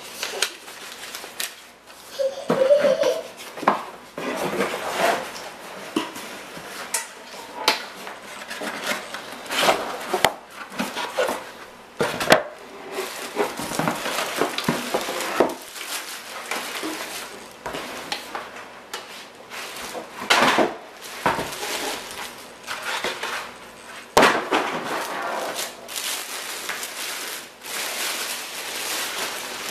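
Unboxing noise: paper and cardboard rustling and scraping, a plastic bag crinkling, and irregular knocks as a boxed stainless steel toaster is pulled out of its packaging.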